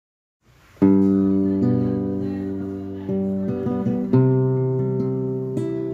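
Acoustic guitar playing a song's intro: after a brief silence, chords are struck and left to ring, a new one every second or so, with a few single picked notes between them.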